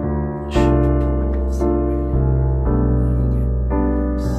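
Background music: sustained piano chords changing about once a second.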